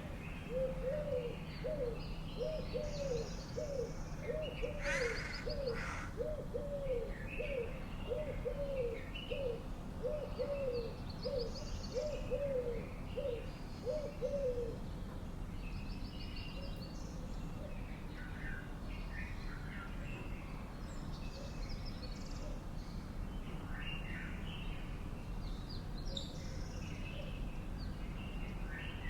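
Birdsong: one bird gives a long, even series of low notes, about two a second, that stops about halfway through, while other small birds chirp and twitter at higher pitch throughout.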